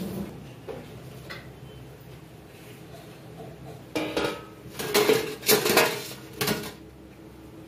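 Wire skimmer clinking and scraping against a stainless steel plate as fried bread patties are tipped onto it: a few light clicks, then a burst of clattering metal strikes about four seconds in, lasting some three seconds.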